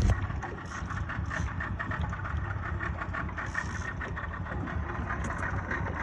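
Boat engine idling steadily, a low running rumble with a fast, even pulse.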